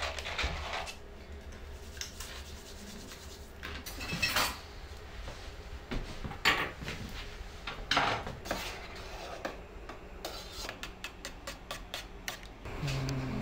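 Dishes and cutlery being handled, with scattered scrapes and clinks and a quick run of light clicks near the end.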